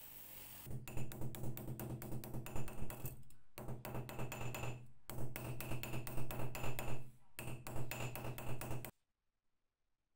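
Ball-peen hammer tapping rapidly on a punch set on a small steel plate, with the axe head beneath serving as an anvil: runs of several sharp metallic taps a second with a steady ringing behind them, broken by short pauses. A spinning bench wheel grinds briefly at the start, and the tapping cuts off abruptly shortly before the end.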